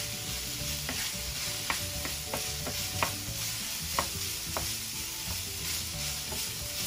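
Ground turkey sizzling in a nonstick frying pan while a wooden spoon stirs and scrapes through it. Light clicks of the spoon against the pan come about once a second over the steady sizzle.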